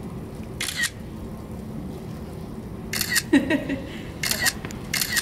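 Camera shutter clicking four times: once about a second in, then three more in quick succession in the second half, each a short sharp snap.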